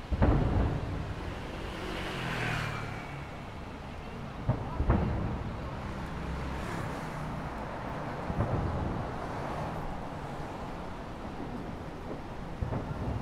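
Aerial fireworks shells bursting: a sharp boom right at the start, two more close together about four and a half seconds in, another near eight and a half seconds and one near the end, each followed by a deep rolling rumble.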